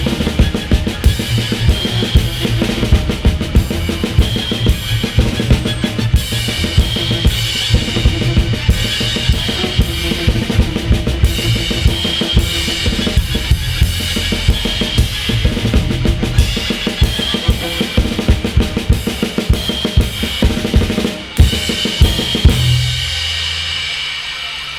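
Ensemble music led by a drum kit playing a steady beat with bass drum and snare over a low bass line. About 22 seconds in the playing stops and the sound dies away.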